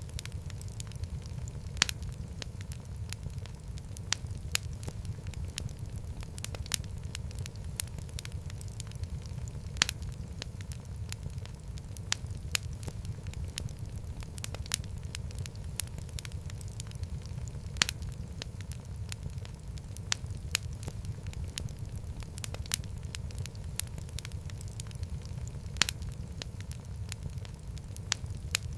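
Wood fire in a fireplace crackling: a steady low rumble of flames under frequent sharp pops and snaps, with a louder pop about every eight seconds.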